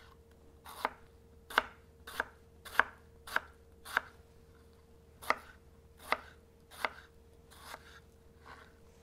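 Kitchen knife dicing tomatillos on a cutting board: slow, separate cuts, each ending in a knock of the blade on the board, about one every two-thirds of a second, with a short pause about halfway.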